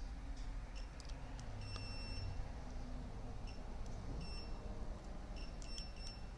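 Digital multimeter beeping in short chirps, one longer beep about two seconds in and a quick cluster near the end, with faint clicks of the probe tips touching the PS5 board. The probes are on the HDMI control IC and its capacitors, testing for a short, and no short is found.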